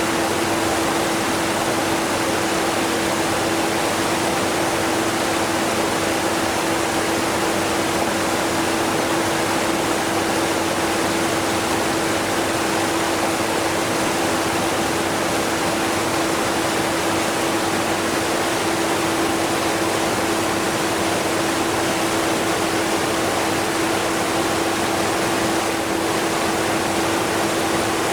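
A strong waterfall rushing steadily, mixed with a running vacuum cleaner that is barely audible under it. A steady hum sits beneath the even rush.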